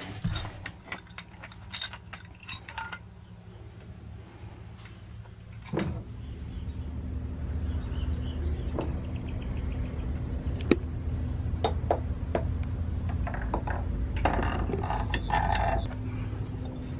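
Metal clinking and tapping as the threaded rod, washers and nuts of a homemade bearing press are handled and fed through a boat's shaft log. There is a run of quick clinks near the start and another a few seconds before the end. From about six seconds in, a steady low hum runs underneath.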